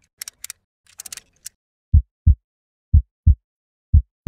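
Intro sound effect: a few faint high ticks, then three low heartbeat-style double thumps, about a second apart.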